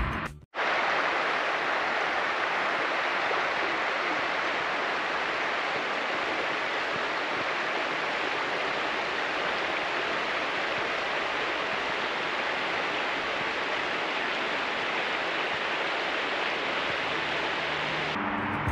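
Steady rushing of stream water, starting abruptly about half a second in and cutting off shortly before the end.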